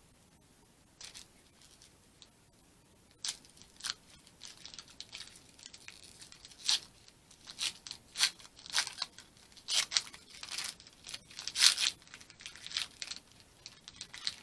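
Foil wrapper of a Pokémon trading card booster pack being crinkled and torn open: a run of irregular sharp rips and crackles starting about three seconds in.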